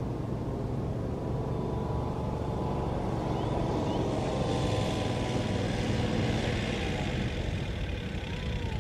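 A distant engine's steady drone, swelling louder around the middle and then easing off.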